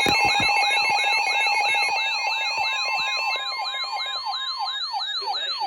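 Electronic emergency-alert alarm tones from weather alert receivers, sounding ahead of a broadcast severe-weather warning. Several overlap: a falling siren-like sweep repeating several times a second, a fast higher warble, and steady tones that drop out about two seconds in.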